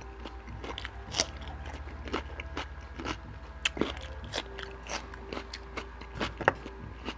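Close-miked chewing of a mouthful of beef chunks and rice: wet smacks and sharp mouth clicks scattered irregularly, a few louder ones standing out.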